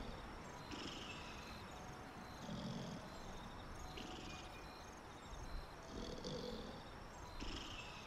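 Domestic cat purring steadily, the purr swelling and easing in slow cycles every second or two as it breathes in and out.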